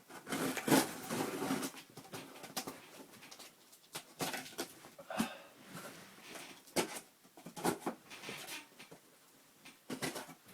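Scattered rustling, clicks and knocks of things being handled close to a phone's microphone, with a few louder bursts near the start.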